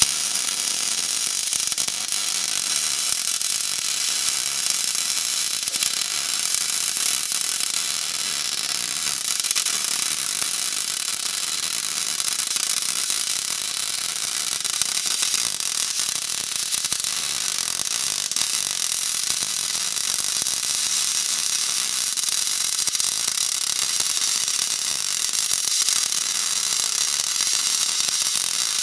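MIG welding arc burning steadily as a continuous bead is laid on cracked cast iron: an unbroken, high-pitched crackling hiss.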